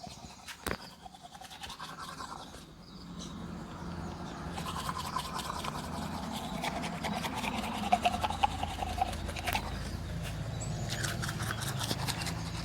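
Teeth being brushed with a toothbrush: quick, repeated scrubbing strokes that start softly and grow louder and denser a few seconds in.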